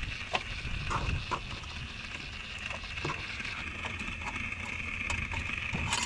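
Outdoor ambience: a steady high-pitched drone with scattered short faint chirps and clicks over a low rumble.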